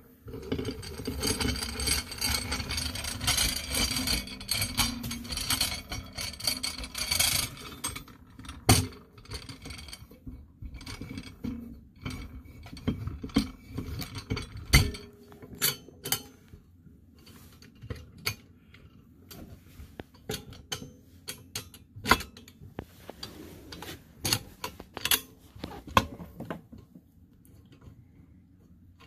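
Handled nut being turned down the threaded rod of a homemade clutch compressor, pressing the cover of a Polaris primary clutch down against its spring. Steady metal scraping and rattling for the first several seconds, then scattered metallic clicks and clinks with a few sharper knocks.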